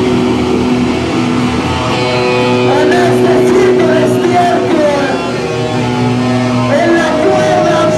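Live noise-ensemble music: sustained droning tones held underneath, with wavering, sliding notes over them from about three seconds in.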